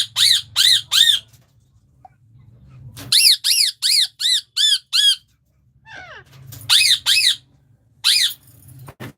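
Pet parrots screeching in loud, repeated arched calls, about three a second, in runs: a few at the start, about seven from three seconds in, then two more and a single one near the end. A low hum runs underneath.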